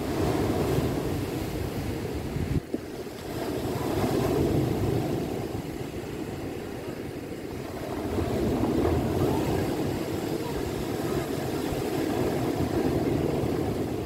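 Ocean surf breaking on a cobble and boulder shore, swelling and easing about every four seconds, with wind on the microphone.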